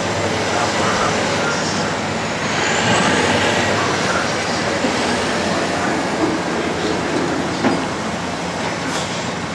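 Heavy diesel machinery at work: a front-end loader's engine running steadily while it handles debris, with a couple of short knocks near the end.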